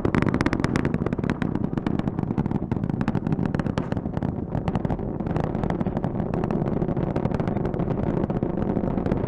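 Space Launch System rocket in flight, its four RS-25 core stage engines and two solid rocket boosters firing: a steady low roar full of rapid crackle.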